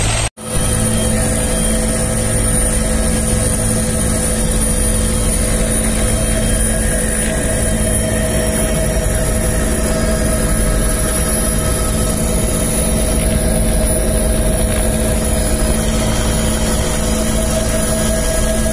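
Turbine helicopter in flight, heard from on board: a steady engine and rotor drone with a high, steady turbine whine, after a brief break in the sound right at the start.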